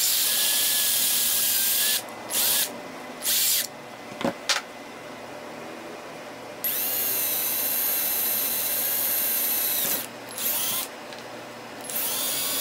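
Cordless drill running in several bursts, its motor whining steadily while drilling small holes through a paintbrush's metal ferrule and a plastic bottle cap. There are two long runs, several short bursts, and a couple of sharp clicks about four seconds in.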